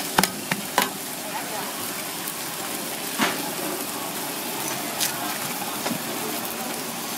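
Roti flatbread frying on a flat-top steel griddle, a steady sizzle, with a few sharp clicks of metal spatula and tongs against the griddle near the start and again about three and five seconds in.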